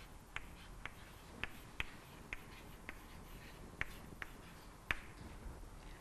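Chalk tapping and clicking on a blackboard while a word is written: about nine short, sharp, faint taps at uneven intervals.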